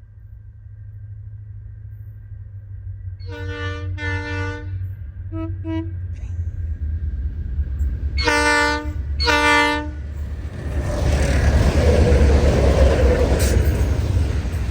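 Diesel locomotive approaching and sounding its horn: two blasts, two short toots, then two more blasts, over a rumble that grows steadily louder. The train then goes past loudly, a dense rushing rumble of locomotive and wagons.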